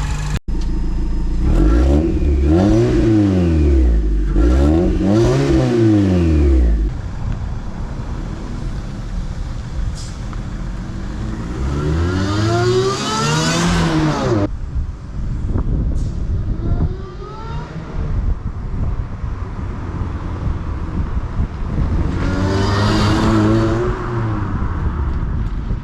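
Supercharged 2009 Suzuki Swift Sport's 1.6-litre four-cylinder engine being revved. There are several quick blips rising and falling in pitch in the first few seconds, then two longer revs, one about halfway through and one near the end, each carrying a high supercharger whine that climbs and falls with the revs.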